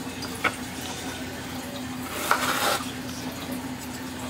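Chef's knife cutting a green bell pepper on a wooden cutting board: a short sharp tap about half a second in, then a longer slicing cut through the pepper near the middle. A steady low hum runs underneath.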